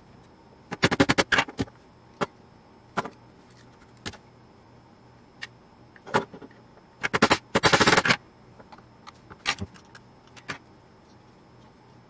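Metal hand tools and device parts knocking and clattering on a wooden bench. A quick run of clicks comes about a second in, then scattered single clicks, and a longer rattle a little past the middle.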